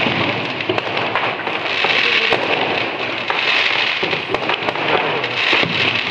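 Diwali firecrackers going off continuously: a dense crackle with frequent sharp pops and bangs.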